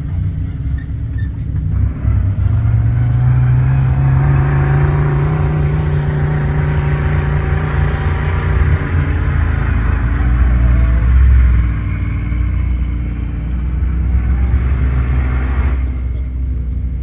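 Off-road buggy engine revving hard under load in soft sand. It swells about two seconds in, rises in pitch, and eases off near the end, over a steady low rumble.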